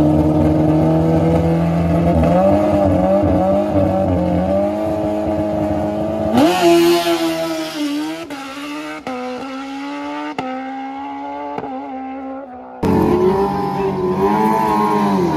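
Suzuki Hayabusa drag bike's inline-four engine held at high revs on the start line, then launching about six seconds in and pulling away through several quick gear changes as it fades down the track. Near the end another motorcycle engine cuts in loudly, revving up and down.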